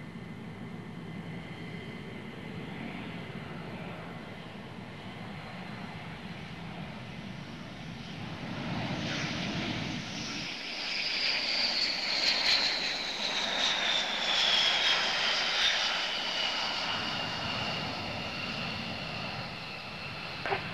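Twin-engine F-15 fighter jets at takeoff power: a steady, more distant jet noise, then from about halfway a louder, nearer one with a high engine whine that falls steadily in pitch as the jet lifts off and passes.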